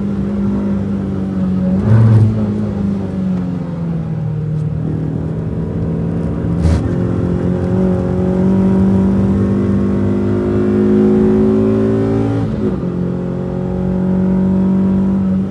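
Renault Twingo RS's 1.6-litre four-cylinder engine under hard track driving. Its note climbs steadily through a long pull in gear, then drops sharply near the end with a shift or lift, with a brief pitch change and thump about two seconds in.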